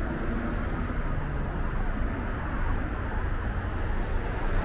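Steady city street noise with a low rumble of traffic.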